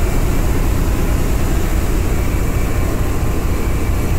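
Steady drone of a harbour ferry under way, heard on its passenger deck: a low engine rumble beneath a continuous rush of wind and water noise.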